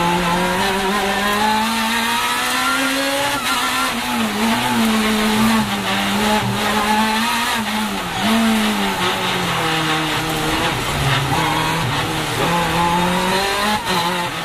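Supercharged Lotus Exige race car's engine at speed on track, heard from inside the cockpit. Its pitch climbs under acceleration and falls back several times, with a sharp drop about eight seconds in.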